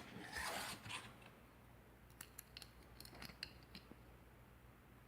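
Faint handling of an opened wafer padlock and picking tools: a brief scrape of metal, then a scatter of light metallic clicks.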